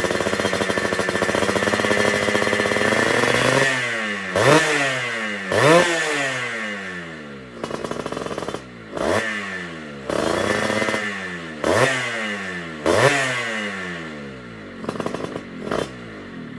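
Motorcycle engine fitted with a PTECH aftermarket exhaust being revved with a crisp, dry note: held high for the first few seconds, then about five sharp throttle blips, each followed by the revs falling away, and a few quick short blips near the end.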